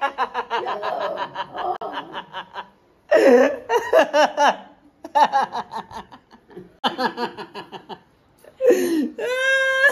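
A man laughing hard: several spells of quick bursts of laughter with short pauses between them, ending in a long drawn-out voiced cry near the end.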